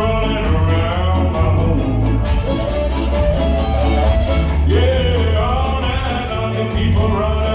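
Live ska band playing: drum kit, bass and electric guitars keeping an even, bouncing beat under a sliding lead melody line, with the whole mix loud and full.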